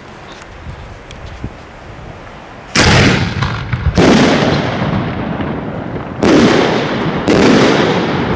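Italian aerial firework shells bursting overhead: four loud booms, the first about three seconds in and the rest over the next four and a half seconds, each trailing off in a long echo.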